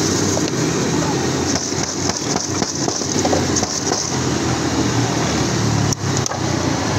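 French fries being tossed with spice mix in a steel bowl, a run of light clattering and rustling through the middle, over a steady din of street traffic.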